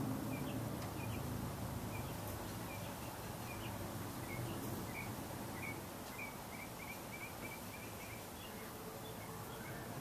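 Montgomery Ward Evergo Model E-3 industrial ceiling fan running: a steady whoosh of air from the blades over a low motor hum, easing slightly about halfway through. Short high chirps come and go over it, a quick run of them near the end.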